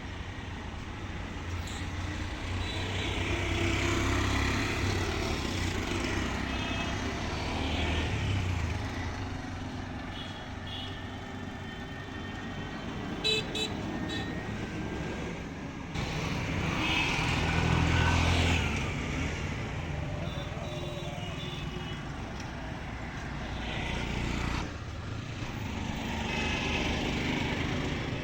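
Road traffic on a moving journey: engine and tyre noise that swells as vehicles pass, with several short horn toots.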